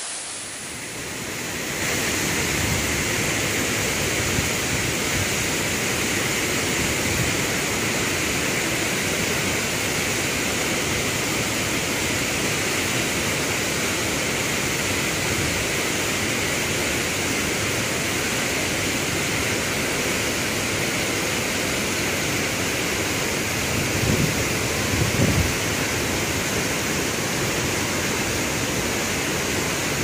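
Wachirathan Waterfall's heavy cascade pouring into a rocky pool: a steady, dense rush of falling water, coming up to full level about two seconds in. Two brief low buffets sound in the last quarter.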